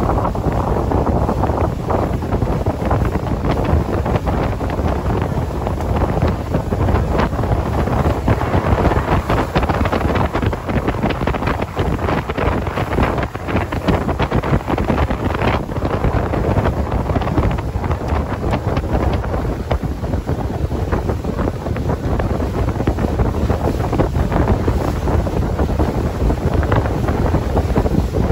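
Heavy wind buffeting the microphone aboard a small open speedboat running at speed, with the boat's motor and rushing water beneath it.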